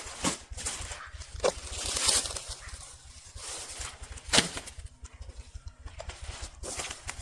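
Cut brush and branches being dragged and piled: rustling and crackling twigs with a couple of sharp knocks of wood, one about a second and a half in and a louder one past the four-second mark.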